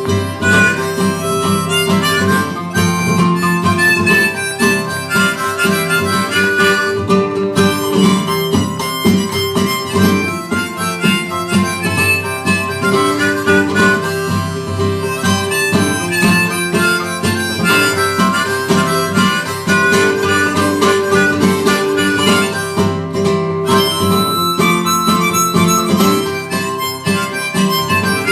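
Harmonica playing a melody over strummed acoustic guitar: the instrumental intro of a folk song, before any singing.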